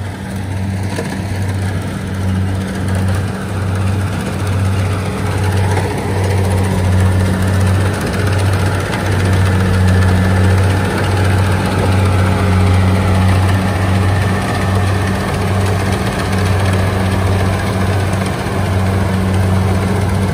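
Kubota DC70 rice combine harvester's diesel engine and threshing machinery running under load as it cuts lodged rice, a steady low drone with a slight pulse. It grows louder over the first several seconds as the machine comes closer.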